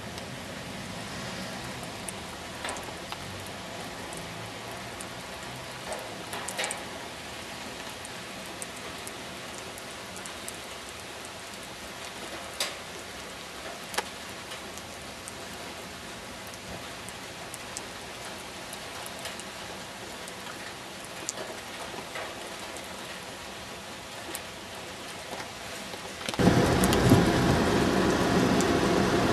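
Steady rain falling, with single drops ticking sharply now and then. Near the end a much louder steady noise cuts in suddenly.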